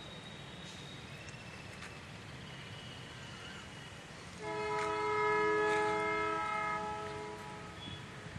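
Train horn sounding a steady chord of several tones for about two and a half seconds, starting about halfway in.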